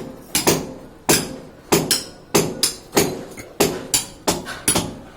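Repeated hand-hammer blows on a masonry wall, knocking it down at a joint: sharp, unevenly spaced strikes, about two to three a second, each ringing briefly.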